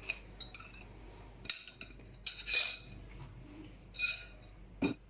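Kitchen utensils and a saucepan clinking and knocking: a few scattered clinks, the loudest about two and a half and four seconds in with a short ring, and a knock near the end.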